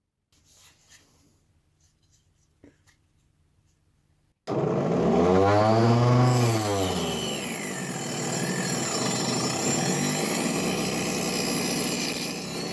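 Homemade mini table saw, two coupled 775 DC motors driving a 4-inch circular blade, starting suddenly about four and a half seconds in after near silence. Its whine climbs and then sags as the blade bites into a board, then settles into a steady cutting sound through the wood.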